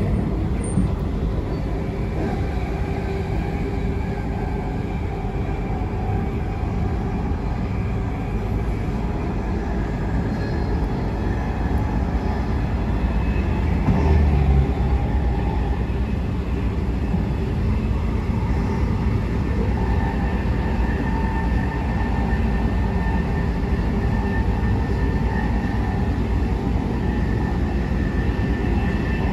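Transperth B-series electric train running at speed, heard from inside the carriage: a steady rumble of wheels on track with a few held tones over it, and a brief low thump about halfway through.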